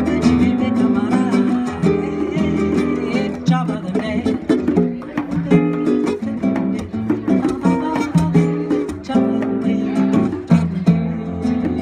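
Brazilian jazz instrumental passage: acoustic guitar playing a busy run of plucked notes and chords over conga drums played by hand.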